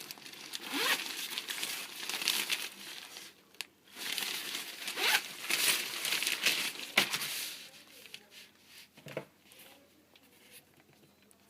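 Packaging crinkling and crumpling as it is handled during an unboxing of football boots, with some tearing. There are two long stretches of rustling and a few sharp clicks, and it dies down after about eight seconds.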